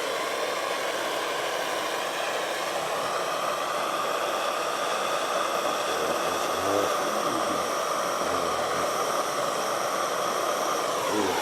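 Handheld plumbing torch burning with a steady hiss as it heats a truck radiator to solder a pinhole leak.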